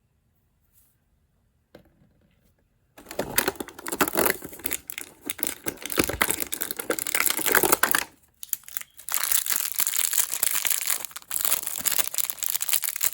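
A small plastic blind bag being torn open and crinkled by hand. It starts about three seconds in, goes on densely for about five seconds, pauses briefly, then picks up again.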